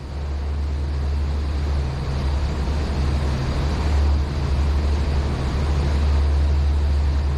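Low steady drone of the Pershing GTX116 yacht's three engines driving water jets as the yacht throttles up and gets under way, with a rushing hiss of water and air over it. It grows gradually louder over the first few seconds, then holds steady.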